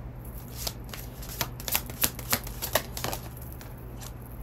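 A deck of cards being shuffled by hand: a quick run of sharp snaps and slaps that starts about half a second in and stops a little after three seconds, followed by softer handling.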